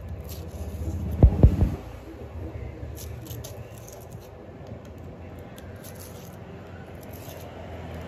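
Three low thumps in quick succession about a second in, then faint small metal clicks and scrapes of a thin tool working inside the tube of a rifle scope being taken apart.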